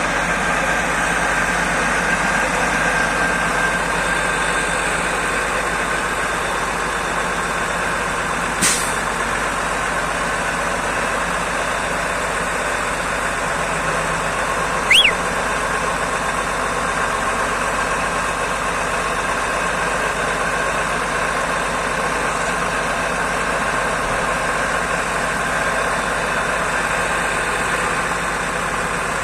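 Heavy diesel engines running steadily: a Belarus MTZ-1221 tractor towing a stuck KamAZ truck. A short sharp click comes about nine seconds in and a brief high squeak about fifteen seconds in.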